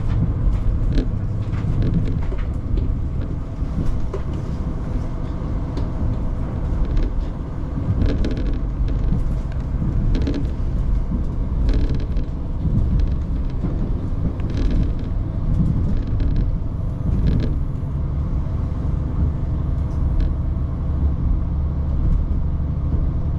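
Diesel railcar running along the line, heard from inside the car: a steady low rumble from the engine and running gear, with scattered clicks and knocks from the wheels on the track.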